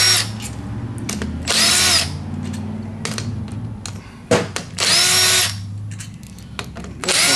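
Cordless impact driver with a socket backing out the bolts of a rotary vane aerator's end plate, run in short bursts of about half a second, each whirring up in pitch and winding down. A sharp click comes just before the third burst.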